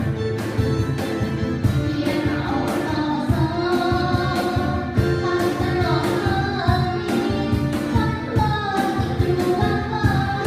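A live band playing a pop song, with a singer over drums and bass and a steady beat.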